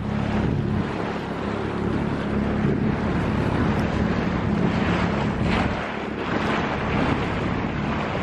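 Small outboard motor on an inflatable dinghy running steadily under way, a low even drone, with wind buffeting the microphone.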